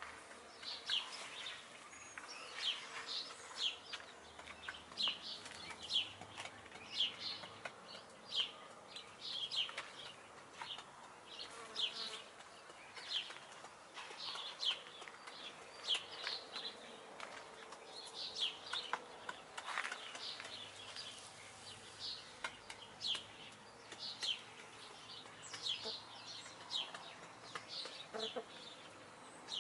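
Small birds chirping over and over, short high chirps about one or two a second.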